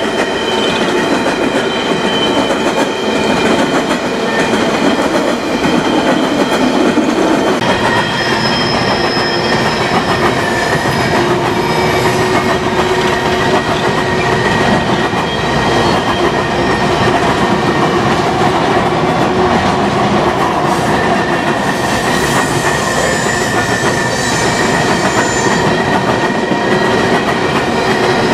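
Loaded coal hopper cars of a long freight train rolling steadily past over a steel girder bridge, a continuous rumble and clatter of wheels on rail joints. Thin high wheel squeal rings over it, fading and returning.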